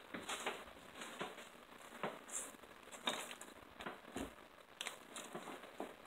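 Eating sounds: chewing and tearing meat off a chicken leg held in the hands, with irregular soft wet clicks and crackles.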